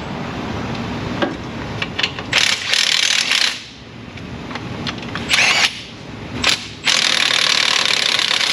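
Hand and power tools working on the transfer case bolts: several short hissing, whirring bursts, a second or less each, with scattered clicks and knocks between.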